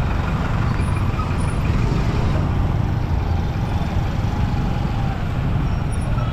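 Diesel engine of a heavy earthmoving machine (a 'dozer') running steadily, a continuous low rumble.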